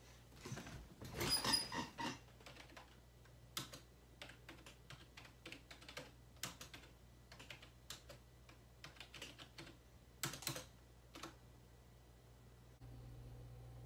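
Typing on a computer keyboard: irregular key clicks in short runs, with a louder rustle and creak about a second in. A low steady hum runs underneath.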